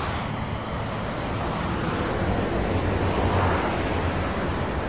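Steady rush of highway traffic, the noise of cars driving past with a low hum beneath, swelling slightly about three and a half seconds in.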